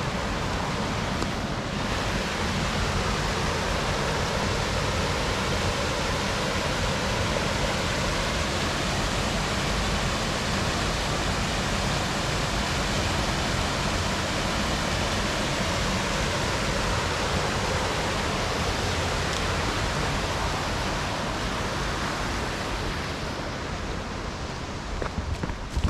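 Mountain stream water rushing steadily over rocks in a gorge, one even wash of sound that eases off a little near the end.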